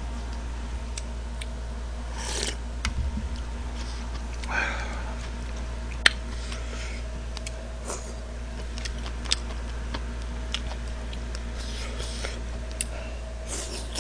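A person eating a bowl of jjamppong noodle soup with chopsticks. A few short slurps of noodles and scattered sharp clicks of chopsticks on the dishes sound over a steady low electrical hum.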